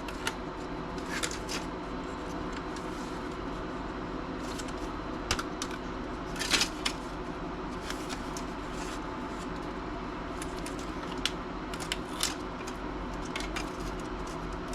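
Scattered light clicks, taps and rattles of small plastic and metal laptop parts being pried loose and handled, over a steady low hum.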